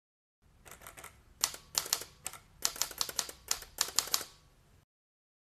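Typewriter keys clacking in an irregular run of keystrokes, a few soft ones first and then about a dozen sharp, louder strikes, stopping abruptly just before 5 seconds in.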